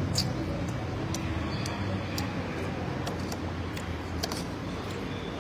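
Metal spoon clicking lightly against a plastic bowl of shaved ice, a scattering of short clicks over a steady low background hum.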